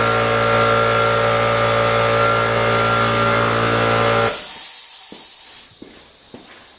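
Case 1840 skid steer's diesel engine running at a steady speed, then shut off about four seconds in; a brief hiss follows, then a few faint clicks.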